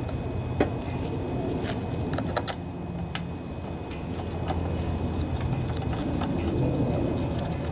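Scattered small metal clicks and clinks as an aluminium carburetor float bowl is seated and its brass bowl nut is threaded on by hand, over a steady low rumble.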